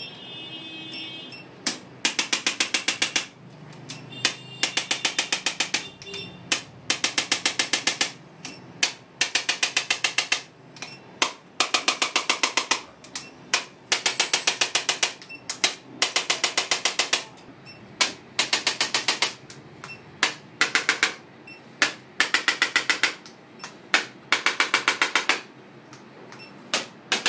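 Handheld percussive treatment device firing in bursts of rapid mechanical clicks, about a dozen clicks a second, each burst lasting about a second with short pauses between, over and over.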